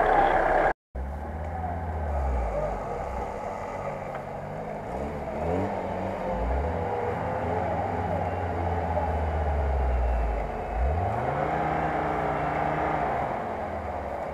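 UAZ-469 off-roader's engine revving up and down under load as it claws up a muddy slope, its pitch rising and falling several times. The sound cuts out briefly about a second in.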